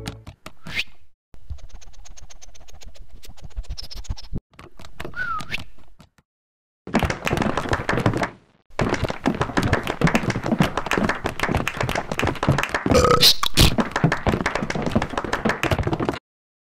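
Rapid clatter of many quick taps and knocks in several stretches, broken by abrupt cuts to silence. The busiest stretch runs through the second half.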